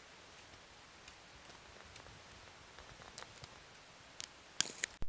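Faint clicks and taps of plastic motorcycle parts being handled: a windscreen and number-plate bracket being lined up over the headlight. The clicks come more often and sharper near the end.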